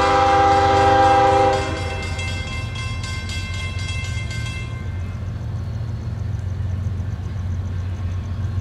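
Horn of an approaching CSX GE diesel locomotive sounding a chord that cuts off about a second and a half in. After it, the steady low rumble of the locomotive's diesel engine.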